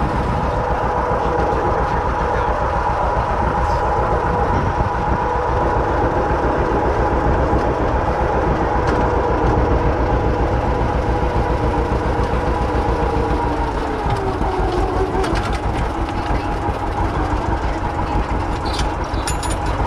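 Vintage John Deere two-cylinder tractor engine running steadily under load with a fast, even putter while pulling a wagon. Its note drops about two-thirds of the way through as it slows.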